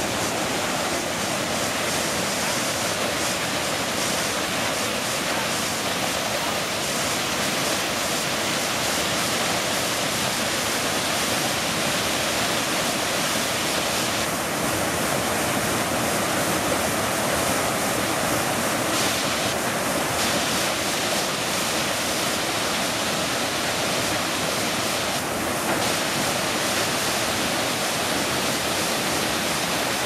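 Waterfall cascading over boulders into a rock pool: a steady rush of falling water.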